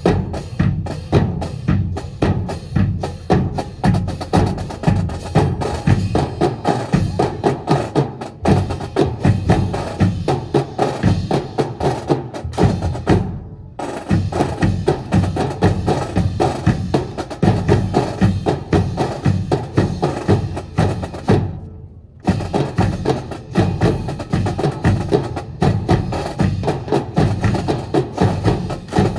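Marching drums playing a fast, driving cadence of sharp, closely packed strokes, broken by two brief pauses, one about halfway and one about three quarters through.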